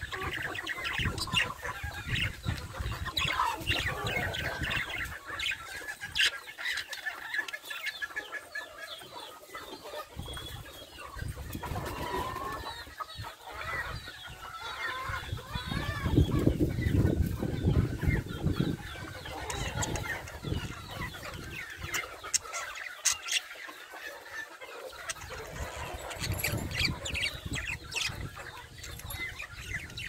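Japanese hagoromo budgerigars chattering: a busy run of short chirps and warbles, with a low rumble about halfway through.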